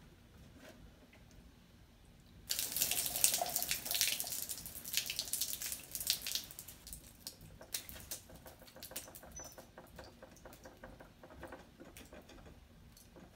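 Water splashing out and then dripping, a sudden rush of spatter that fades over a few seconds into scattered drips and crackles: water that had got inside a car headlight housing.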